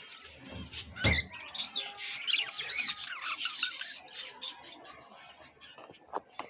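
Many caged birds chirping and squawking at once, a dense overlapping chatter of calls. A single loud knock about a second in.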